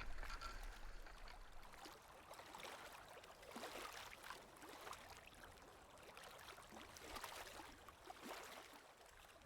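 Faint river water splashing and trickling, with a few soft swishes a few seconds apart.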